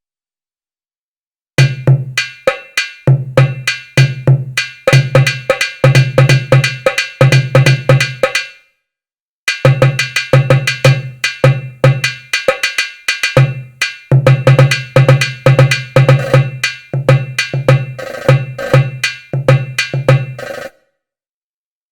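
Indian percussion pattern played from the SwarPlug 4 virtual instrument library: fast, rhythmic pitched drum strokes. It comes in two phrases with a short pause between them and stops about a second before the end.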